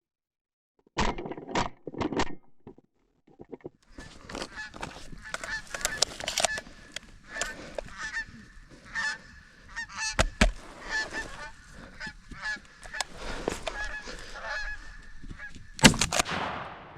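A flock of Canada geese honking close by, many calls overlapping: a few loud honks about a second in, then a thick run of calling from about four seconds on. Near the end comes one loud, sharp bang, a shotgun shot.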